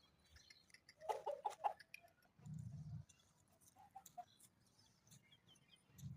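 Faint short animal calls: a quick run of them about a second in and a few more near four seconds, with a brief low rumble between.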